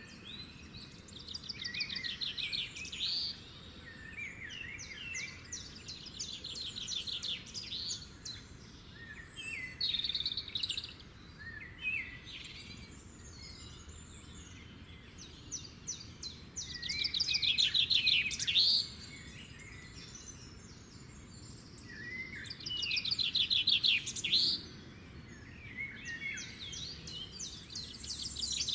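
A songbird singing repeated fast trilled phrases, each a second or two long, every few seconds, over a faint steady background hiss.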